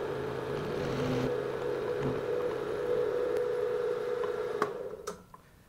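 PM-727 milling machine's spindle running with the end mill taking a light pass along the aluminium part, to clean off a burr left on its bottom edge. It hums steadily, then stops with a click about four and a half seconds in and dies away quickly.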